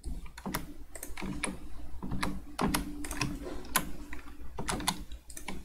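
Computer keyboard keys being pressed: about fifteen sharp keystrokes at an uneven pace, some in quick runs, as shortcut keys are entered.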